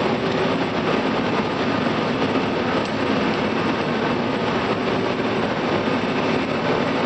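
Combine harvester running while threshing soybeans, heard from inside the cab: a steady, even mechanical drone with a faint low hum through it.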